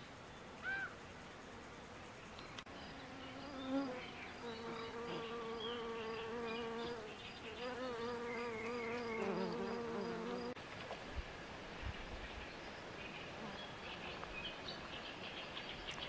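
A bumblebee buzzing in flight, its hum wavering up and down in pitch. The buzz starts about four seconds in, breaks off briefly midway, and stops about ten seconds in.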